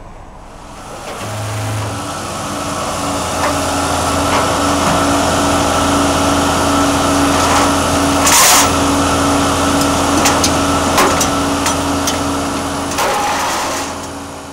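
Car engine and road noise building up over the first couple of seconds, then running steadily at an even engine speed. A sharp knock comes about eight seconds in.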